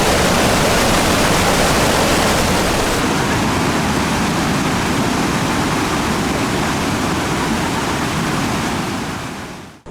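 Loud, steady rush of a waterfall running high with spring meltwater, fading out near the end.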